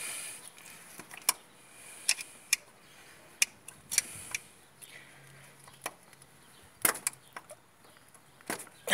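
Hand tools clicking and knocking against the metal of a Bosch VE rotary diesel injection pump as its central fuel-delivery screw is worked on, about a dozen irregular sharp clicks with pauses between. The engine is not running.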